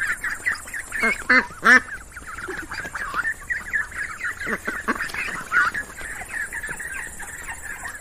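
Several ducks quacking in a continuous run of short, overlapping calls, with a few louder quacks about a second in.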